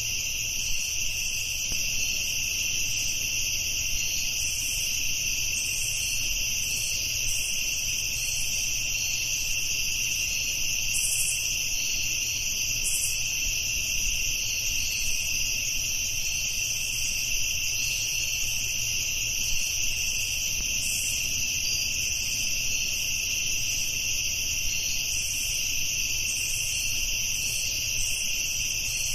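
A steady, high-pitched chorus of insects, unchanging throughout, over a low rumble.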